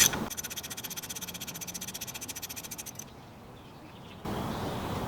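Socket ratchet clicking rapidly and evenly for about two and a half seconds, then stopping. A steady background hiss comes in near the end.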